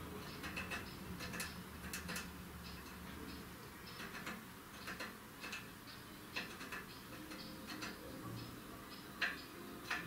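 Eurasian blue tit tapping its beak on the wooden perch: irregular light ticks, the sharpest one near the end.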